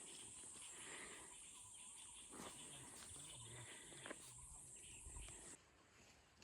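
Faint, steady high-pitched insect chirring, cricket-like, that cuts off suddenly about five and a half seconds in, with a few soft knocks.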